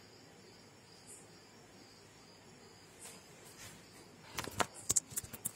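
Quiet room tone with a faint steady high tone. About four seconds in comes a quick run of sharp clicks and knocks, like something being handled close to the microphone.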